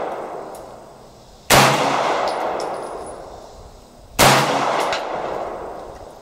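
Two shots from a Boberg XR9-S 9 mm pistol, about two and a half seconds apart, each followed by a long echo that dies away. Before the first shot, the echo of an earlier shot is still fading.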